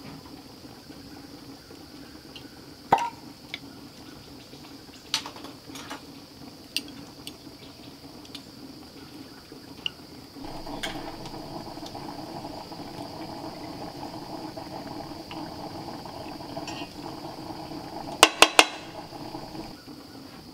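Cooking utensil sounds: a metal spoon clinking on a glass jar and cast-iron cookware in scattered knocks, ending in three quick, loud taps near the end. A steady hum comes in about halfway through.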